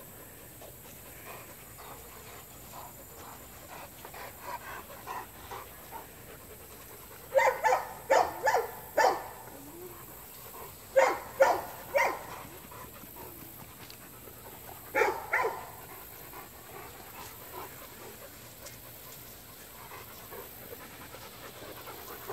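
Rottweilers panting, broken by three bursts of short, loud barks: a run of about six a third of the way in, three more near the middle, and a pair about two-thirds through.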